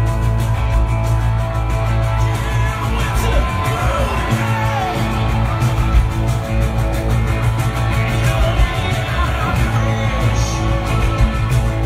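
Live rock band playing loudly through a festival PA: electric guitars over drums and heavy bass, heard from the crowd.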